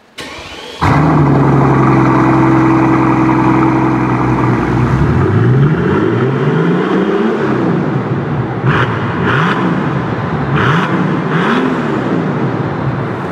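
Brabus Rocket 900's twin-turbo V12 cranking and catching about a second in, then running at a steady fast idle. From about five seconds in it is revved several times, its pitch rising and falling, with four short bursts of hiss between revs.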